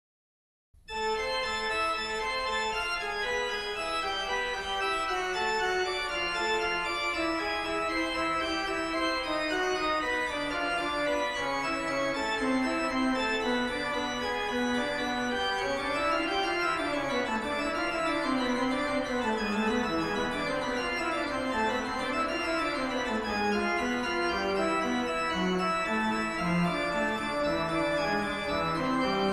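Organ music playing slow, held chords. It comes in suddenly about a second in, after silence.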